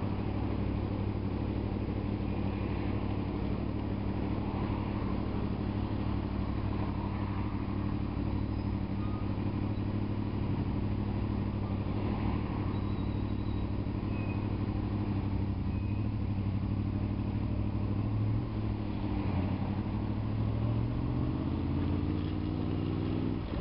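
Honda VFR's V4 engine idling steadily, then rising in pitch near the end as the bike pulls away.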